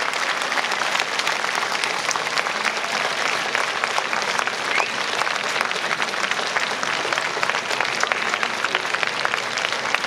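Ballpark crowd applauding: many hands clapping in a dense, steady patter, greeting a leadoff home run.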